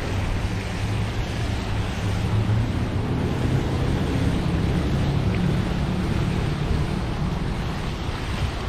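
Wind buffeting the microphone: a steady, rumbling rush of noise, heaviest in the low end.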